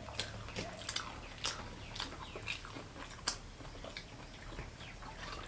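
Someone chewing a crunchy namkeen snack with the mouth close to the microphone: irregular short crunches and crackles, about two or three a second.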